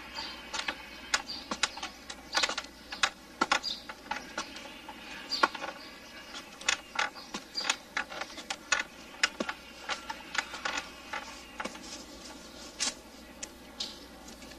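Irregular metallic clicks and clanks, a few a second, from climbers on tall assembled ladders, over a faint steady hum.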